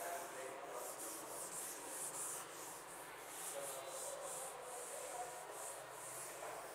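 Eraser rubbing back and forth across the glass of an interactive display, wiping off pen marks, in quick repeated strokes of about two or three a second.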